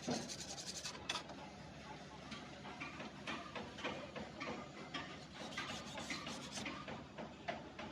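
Irregular light clicks, taps and rubbing of hand work on metal engine parts and tools, a few clicks ringing briefly.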